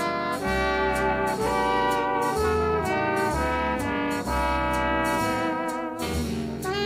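Jazz with a horn section over a bass line, played back from a cassette recorded with Dolby C on a Kenwood KX-5530 stereo cassette deck.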